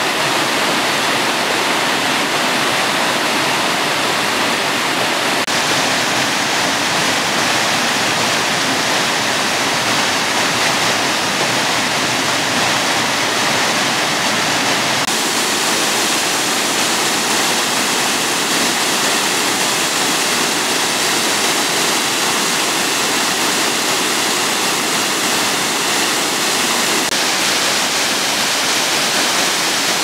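Water pouring down rocky cascades and over a stone weir, a loud, steady rushing. Its tone shifts about five seconds in and again at about fifteen seconds, as a different fall takes over.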